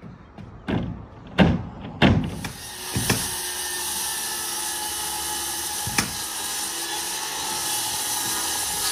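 A pneumatic nail gun fires a few sharp shots into plywood roof sheathing, with one more shot midway. From about two seconds in, a corded circular saw runs steadily, cutting through a plywood sheet.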